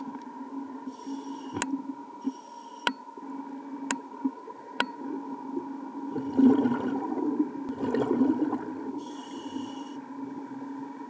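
Underwater sound picked up by a scuba diver's camera: a steady hum with a few sharp clicks and short hisses through the regulator, then a louder rush of exhaled bubbles from about six to nine seconds in.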